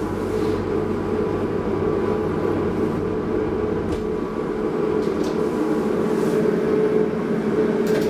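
DEVE hydraulic elevator running, a steady mechanical hum with a constant tone. A low rumble under it drops out about four seconds in, and a sharp click comes right at the end as a car button is pressed.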